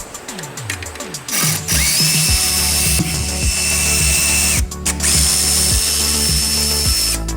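Power tool spinning up with a rising whine and running steadily, stopping briefly about two-thirds through and starting again, over background music with a steady beat.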